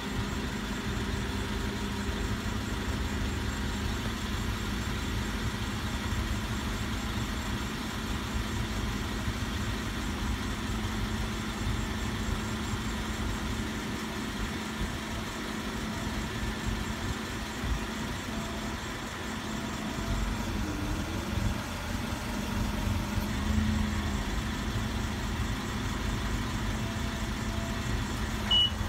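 Nissan forklift's engine running steadily. Near the end its reversing alarm starts, in short high beeps a few times a second.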